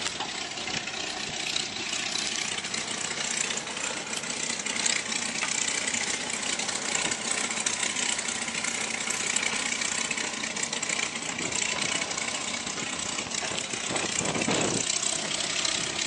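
Steady engine noise, heard as an even rushing sound that holds level, with a brief low swell near the end.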